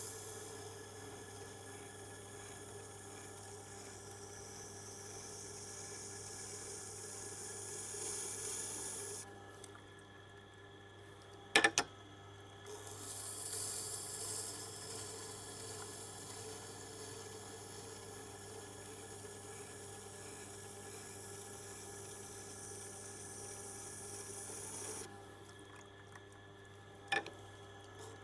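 Hard tool-steel oboe reed scraping tool ground on a Tormek's water-cooled grindstone: a steady hiss of steel against the wet stone over a low hum. The hiss stops twice for a few seconds, about ten and twenty-five seconds in, each break marked by a sharp click.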